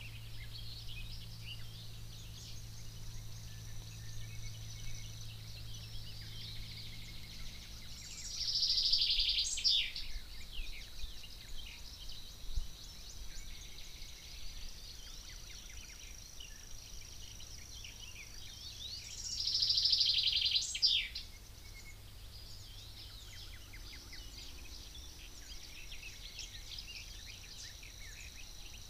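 Woodland birdsong, with many small birds calling. One bird sings a loud song twice, about eight and nineteen seconds in: a fast trill that ends in a sharp falling flourish. A low steady hum fades out about eight seconds in.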